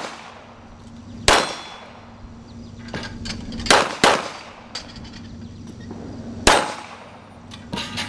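Pistol shots fired at steel plate targets, each crack followed by the clang and ring of the steel. There is one shot about a second in, two in quick succession near the middle, another about two-thirds through, and lighter clicks near the end.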